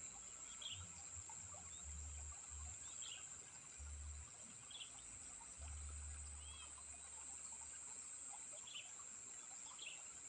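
Faint rice-field ambience: short bird chirps every second or two over a steady, high-pitched insect drone, with patches of low rumble in the first half or so.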